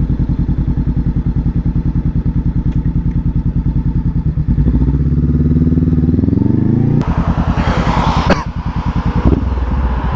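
Honda CB500F parallel-twin engine ticking over with an even pulse, then pulling away. The revs climb smoothly from about four and a half seconds in. Shortly after seven seconds the pitch drops suddenly, as a gear change would, and wind noise rises as the bike gets moving.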